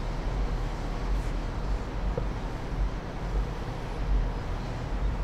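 Wind buffeting the microphone: a low, uneven rumble that swells and dips, over faint outdoor town noise.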